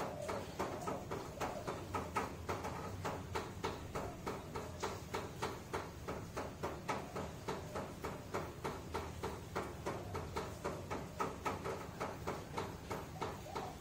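Steady rhythmic ticking, about three ticks a second.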